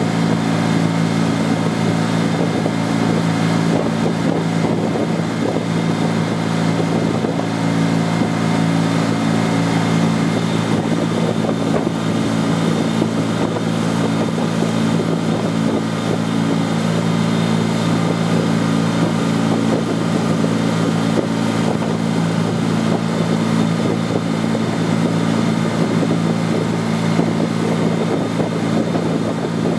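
Tender boat's engine running steadily at speed, a constant drone, with the churning of its wake over it.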